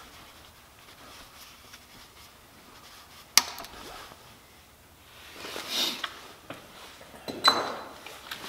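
Hand tools on the bolts of a Ford Focus ST's balance shaft assembly. A ratchet and wrench give one sharp metallic crack about three and a half seconds in, followed by clinks and scrapes of the tools near the end, one with a brief metallic ring.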